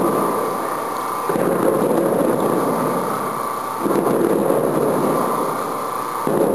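Potato chlorinating tubs and their elevator running: a rumbling rush that swells and eases about every two and a half seconds, over a steady machine whine.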